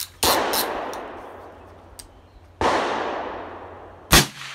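Suppressed 300 AAC Blackout AR pistol with a 9-inch barrel and AAC 762-SDN-6 silencer, firing 147-grain supersonic factory rounds. There are three shots: the first two trail off in long echoes, and the loudest is a short, sharp crack just after four seconds in.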